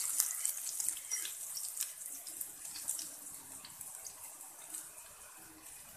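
Minced garlic sizzling and crackling in hot oil in a stainless steel pan, with a fork scraping through it at first; the sizzle grows quieter toward the end as the garlic starts to turn golden.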